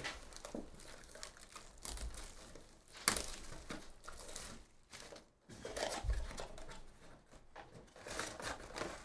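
Wrapper on a Topps Chrome trading-card box crinkling and tearing as it is pulled off, then the cardboard box handled and its lid flap opened. Irregular rustling, with a sharp crack about three seconds in.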